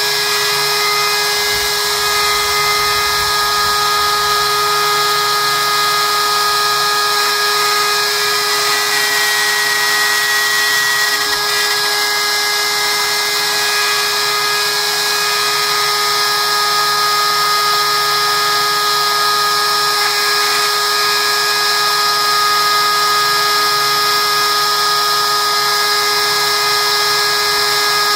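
Trim router on a vertical CNC spinning at a steady high speed, a constant high whine, as it routes a pattern in a plywood sheet.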